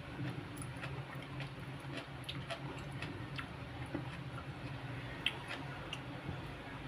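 Close-up eating by hand: irregular small clicks and smacks of chewing and of fingers picking food from the plate, over a steady low hum.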